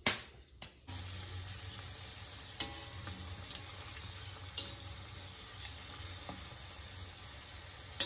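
Samosas deep-frying in hot oil, sizzling steadily from about a second in, with a few sharp clicks now and then. A few soft knocks come before the sizzle begins.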